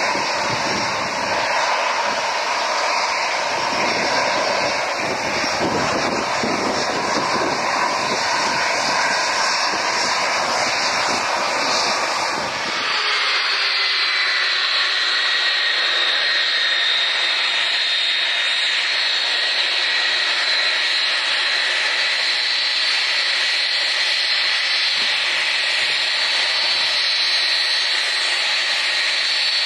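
Jet airliner engines at take-off thrust on departure: a loud, dense roar with a deep rumble. A little under halfway through it changes abruptly to a thinner, steadier jet engine sound carrying high whining tones.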